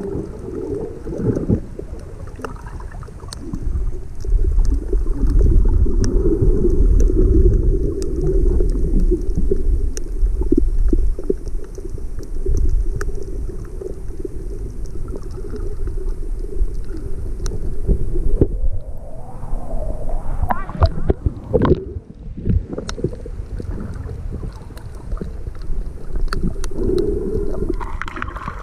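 Muffled underwater sound from a camera held below the surface: a low rumble and swish of water moving past it, with scattered faint clicks.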